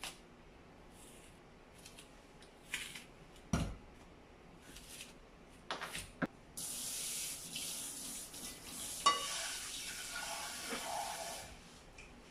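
A tap running into a sink for about five seconds, starting about halfway through, with a clink partway through. It is preceded by a few knocks and clicks of kitchen items being handled, the loudest a dull thump.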